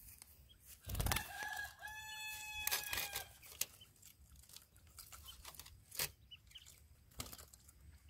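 A fowl's crowing call about a second in: one drawn-out pitched call with a couple of short breaks, lasting about two seconds. Faint scattered clicks follow.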